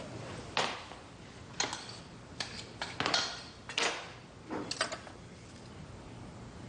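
Kitchen handling clatter: a series of sharp clicks and clinks from a metal spatula and fork against a glass bowl and plate as a thick piece of meat is lifted out and set down.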